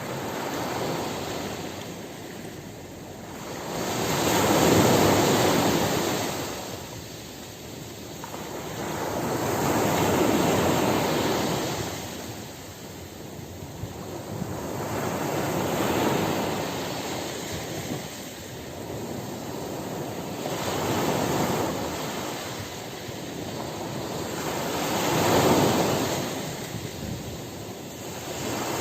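Sea waves breaking and washing up the shore, surging about every five to six seconds, each rush swelling and then falling away.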